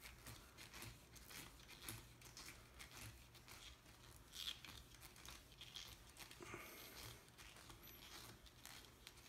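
Faint small clicks and scrapes of a screwdriver turning out a screw in an RC monster truck's plastic steering knuckle, over a quiet room.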